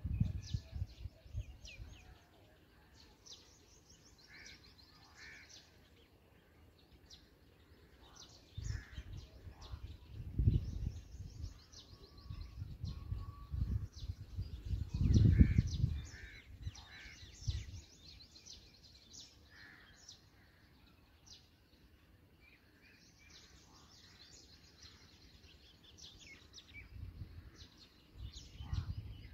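Black drongos at the nest calling: many short, high chirps throughout, with a few lower, fuller notes here and there. Several low rumbling bursts, about ten and fifteen seconds in and at the very start and end, are the loudest sounds.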